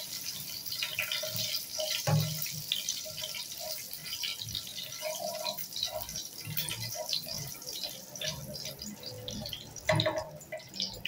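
Dried red chillies, curry leaves and cumin seeds frying in hot oil in a non-stick wok: a steady sizzle with many small crackling pops. A spatula scrapes and knocks against the pan a couple of times, most loudly near the end.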